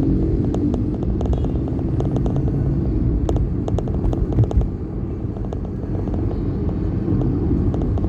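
Steady low rumble of a moving road vehicle and the traffic around it, with scattered light clicks and rattles.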